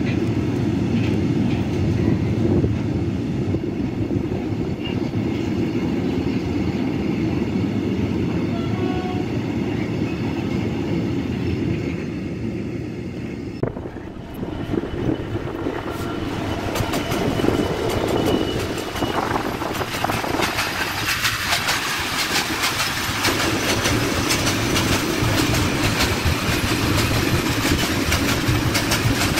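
Freight train of steel-coil wagons rolling past with a steady rumble of wheels on rail. After a cut about halfway, a pair of Class 66 diesel locomotives comes through hauling hopper wagons. Wheel clatter and clicks at the rail joints grow louder toward the end as the wagons pass.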